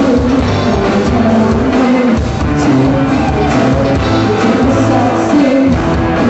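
Live rock band playing loudly with vocals, an even beat under sustained instrument and voice lines.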